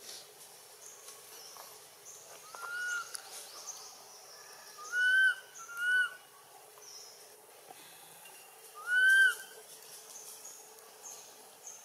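Baby long-tailed macaque crying for its mother with four short, whistle-like calls, each rising and then falling in pitch. The first is weaker, and the three that follow, about five, six and nine seconds in, are loud.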